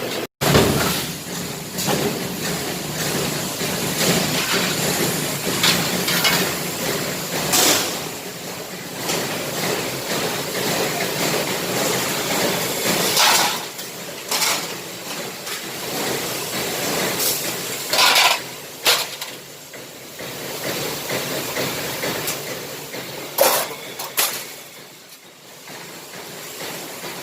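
Large mechanical press running, with a steady machine noise and about half a dozen short, sharp hissing or clanking bursts spaced a few seconds apart, as the press cycles on its pneumatic clutch and brake.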